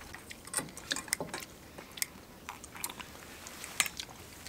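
People chewing and eating close to the microphone, with irregular small crunches and clicks.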